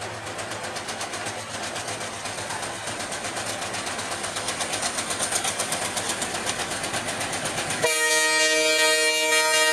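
Diesel locomotive hauling an express passenger train, its engine and running noise growing louder as it approaches. About eight seconds in, the locomotive's horn starts a loud, steady blast of several tones sounded together.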